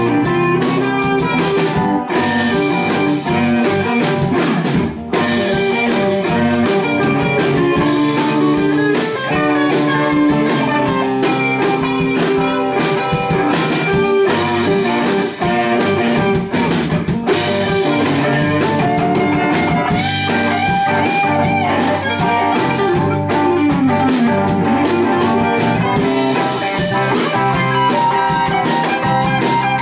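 Live band jamming a blues number: guitar playing over a drum kit with cymbal hits, loud and continuous.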